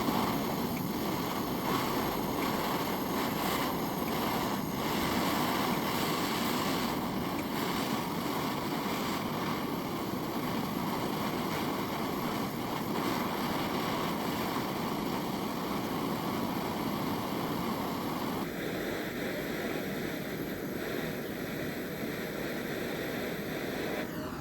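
Steady rushing of a gas torch flame heating the sharpened tips of threaded steel rods red-hot before oil quenching for hardening. The sound thins out about eighteen seconds in.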